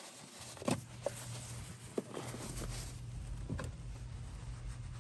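A few light knocks and taps from handling, over a low steady hum that comes in about half a second in and grows a little stronger past the middle.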